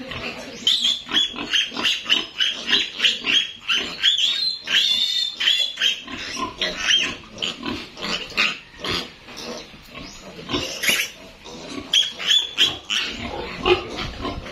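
Piglet squealing in distress while being castrated: a long run of short, shrill squeals several a second, easing briefly past the middle and picking up again near the end.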